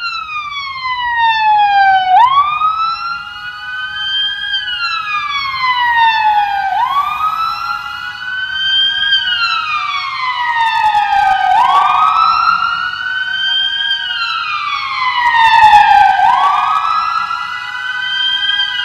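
Emergency vehicle sirens wailing, the pitch slowly rising and falling about every four and a half seconds; loudest late on.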